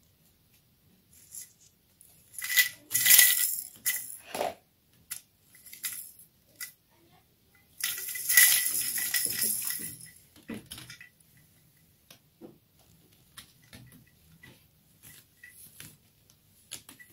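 Rattling and scuffling of a hanging mesh play tube swinging as a kitten scrambles inside it. There are two loud bouts, about two and a half and eight seconds in, with lighter scattered taps between and after.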